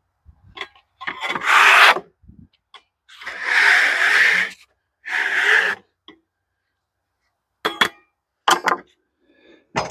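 Sawdust being wiped off a freshly sawn oak board with a hand tool: three long rubbing strokes across the wood, then a few short knocks near the end.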